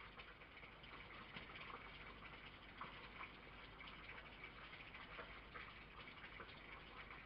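Near silence: a faint steady hiss with scattered light ticks and crackles.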